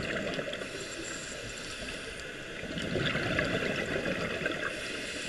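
Scuba exhalation bubbles from a regulator, heard underwater: a surge of bubbling at the start and another about three seconds in, in time with a diver's breathing.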